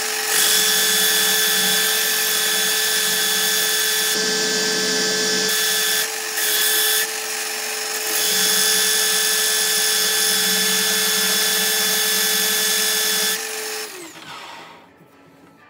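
Pillar drill running at a steady pitch, spinning an oak bottle-opener blank on a bolt-and-plate jig while sandpaper is held against it; the sanding sound eases off and comes back a few times. Near the end the drill is switched off and its motor winds down, falling in pitch.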